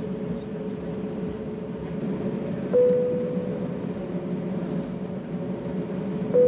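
Steady engine and cabin hum inside an Airbus A320neo taxiing, with a single-tone cabin chime sounding twice, about three and a half seconds apart, each fading slowly.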